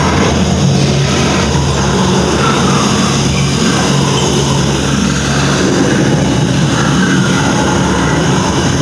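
Amusement-park boat ride machinery running with a steady low hum over a constant rushing noise.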